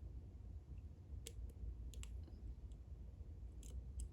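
Faint, scattered metal clicks of lock picks working a 10-pin Clavis lock, about six sharp ticks spread irregularly over a few seconds, over a steady low hum.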